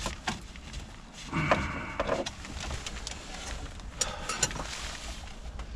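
Scattered plastic clicks, knocks and short rattles as a screwdriver pries a climate control unit and its trim bezel out of a 2004 Ford Expedition's dashboard, over a steady low rumble.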